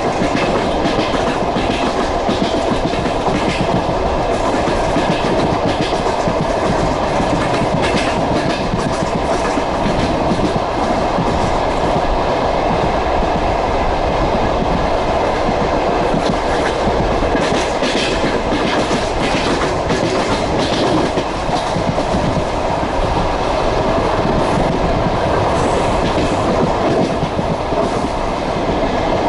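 Passenger train wheels running over the rails at speed, heard on board: a steady rumble with the clickety-clack of the wheels knocking over rail joints, and clusters of sharper knocks.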